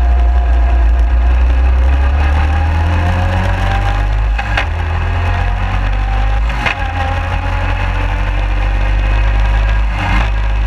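Suzuki 250 QuadSport running as it rides over grass, picked up by a camera mounted low on the front frame near the suspension, with a heavy low rumble under the engine note. Three sharp knocks come about a third of the way in, past the middle and near the end.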